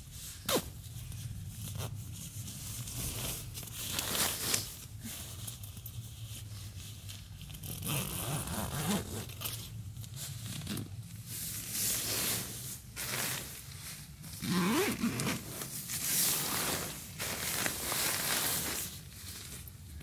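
Zipper of a Marmot CWM down sleeping bag being run along its track in repeated strokes, with rustling of the bag's nylon shell as it is handled.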